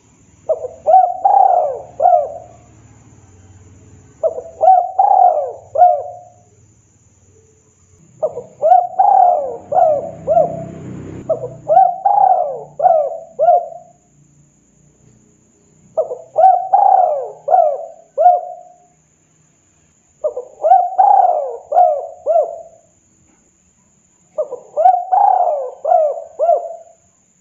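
Spotted dove cooing: about seven phrases, each a quick run of several coos, separated by pauses of one to two seconds.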